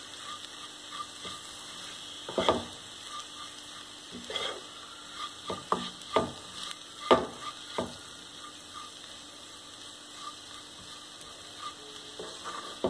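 Onion, ginger-garlic and ground-spice masala frying in oil in a pan while it is stirred, with a faint steady sizzle. The stirring utensil knocks and scrapes against the pan about ten times at irregular intervals, most often in the middle.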